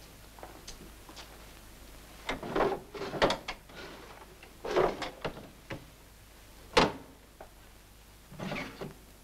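Rummaging and handling noises: a few scrapes and knocks, then one sharp click about seven seconds in.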